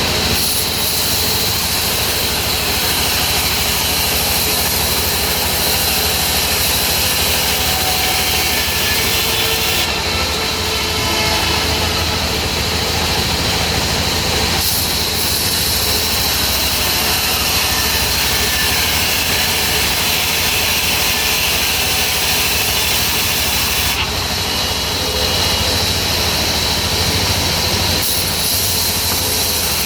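Sawmill saw and its drive running steadily: a loud, even drone with a high hiss, its top end changing a few times.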